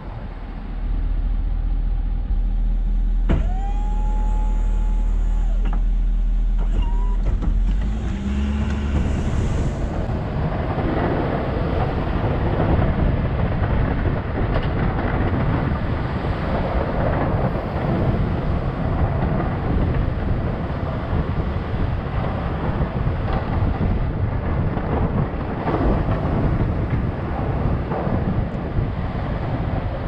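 Plow truck running: a steady low engine hum, with a whine that rises and then holds for about three seconds, a few seconds in. From about ten seconds in, a louder, rough, continuous rumble of the truck under way.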